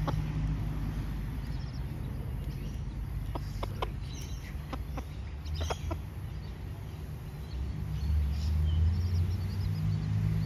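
A hen and her young chicks foraging, with a few short clucks and peeps clustered in the middle and faint high chirps later. Underneath is a steady low rumble that swells near the end.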